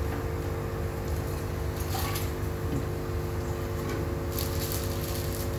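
Steady hum of aquarium equipment running under the tanks, with soft wet handling and splashing sounds as a hand works in the tank water, a longer stretch of it near the end.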